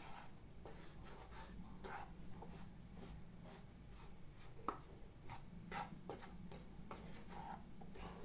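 Spatula scraping and lightly tapping against a kadhai while stirring a dry gram-flour and semolina mix roasting in ghee. The scrapes are faint and irregular, about two a second.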